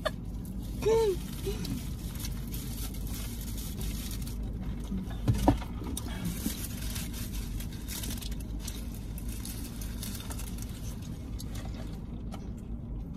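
Mouth-full eating sounds of two people eating wrapped burritos: chewing and the crinkle of the paper and foil wrappers, over a steady low hum. A brief hummed voice sound comes about a second in, and a single knock about five seconds in.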